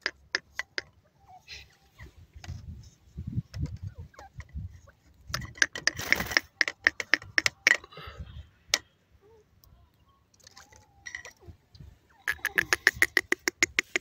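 Grey francolin calling: rapid runs of short, clipped clucking notes, about eight a second, in three bouts.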